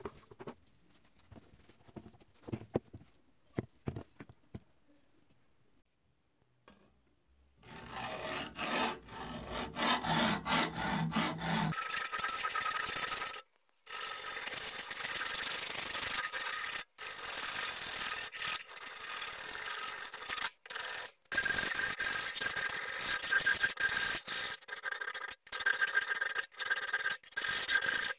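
A metal file scraping across the steel blade of an old draw knife clamped in a vise, in steady repeated strokes with a few short breaks. Before that, for the first several seconds, only faint light clicks and taps as the knife is handled.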